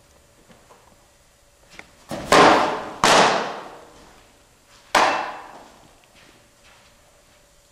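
Pitched softballs striking their target: three loud hits about two, three and five seconds in, each with a rattling ring that dies away over about a second.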